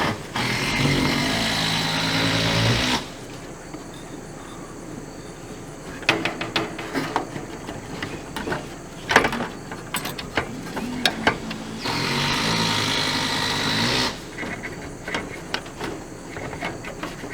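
A small electric power tool, like a drill, runs steadily twice, each time for about two and a half seconds: once near the start and again about twelve seconds in. Between and after the runs come scattered clicks and knocks of furnace parts being handled and fitted.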